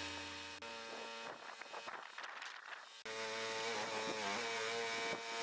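A sawmill's motor starts humming about three seconds in and runs steadily, its pitch dipping briefly once as it takes a load.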